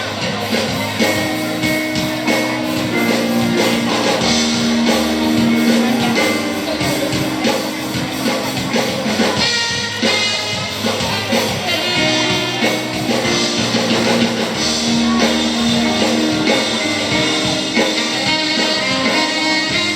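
Live band playing a rock song through a PA: drum kit, electric guitar and a singing voice.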